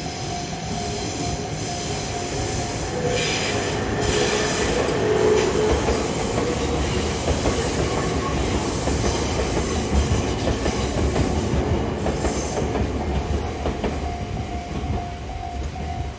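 A train passing over a level crossing, its rail noise building and then easing off. The crossing's warning bell rings in a steady, even pulse before the train drowns it out, and is heard again as the train fades.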